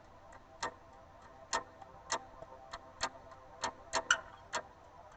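Quiet break between sung lines of a rock song: a sparse, uneven pattern of sharp ticks, roughly one or two a second, over faint held notes.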